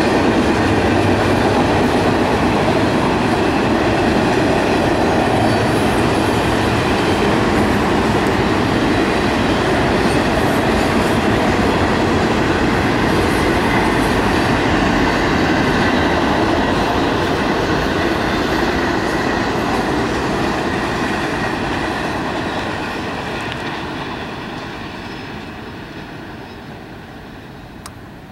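Intermodal freight train of double-stack container and trailer cars rolling past on the rails, a steady loud rumble and rattle of wheels. It fades away over the last several seconds as the train moves off.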